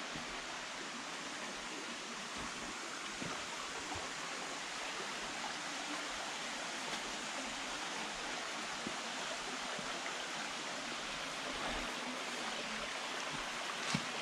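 Rushing water, a steady even hiss throughout, with one sharp knock near the end.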